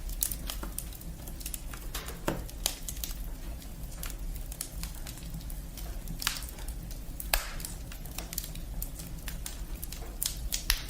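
Firewood burning, crackling with sharp, irregular pops over a low, steady rumble.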